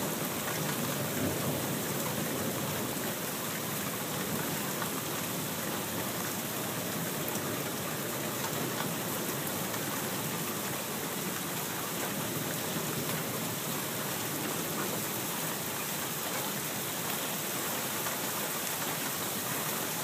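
Steady drenching rain falling during a thunderstorm, with thunder rumbling under it.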